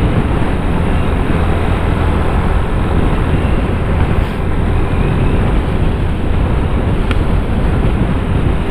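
Motorcycle cruising steadily at highway speed: a loud, even rush of wind over the microphone mixed with engine and tyre noise.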